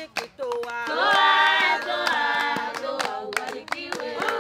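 A group of women singing together without instruments, with hand claps running through the song.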